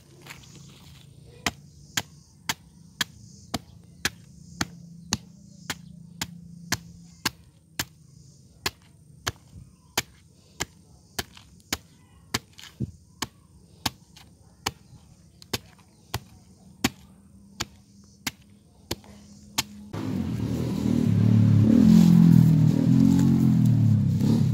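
A blade chopping a green banana stem into pieces, a steady run of sharp chops about one and a half a second. About four seconds from the end, a louder low rumbling noise takes over.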